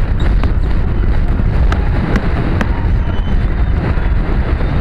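Wind rushing hard over a jockey-cam microphone as the racehorse gallops at full speed, with a few sharp ticks about halfway through.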